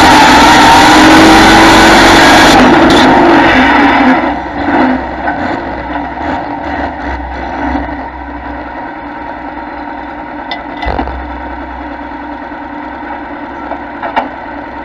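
Pulling tractor's engine at full throttle, very loud, then throttled back about four seconds in. It settles to a much quieter, steady low running as the pull ends.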